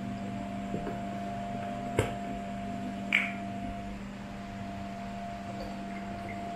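Handling of a soft plastic grape-juice pouch as its spout is opened: a few sharp clicks, the loudest about two and three seconds in, over a steady background hum. Near the end the juice is poured through a plastic funnel into a glass gallon jug.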